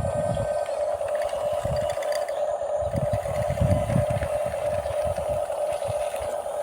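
Electric motors of a small radio-controlled bulldozer whining steadily as it runs, with irregular low rumbles coming and going underneath.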